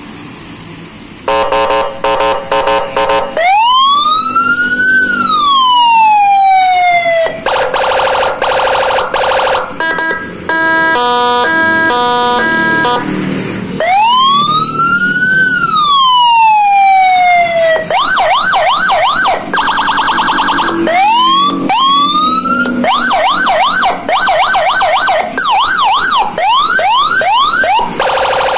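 Electronic police-escort (patwal) siren cycling through its tones. About a second in it starts with fast pulsing beeps, then comes a slow rising-and-falling wail, a buzzing horn, a stepped hi-lo melody, the wail again, and finally rapid repeating yelps broken by horn blasts.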